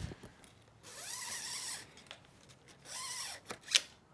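Bike parts and tools rummaged and scraped around in a parts bin: two scraping slides, the first about a second long, then a sharp clack near the end.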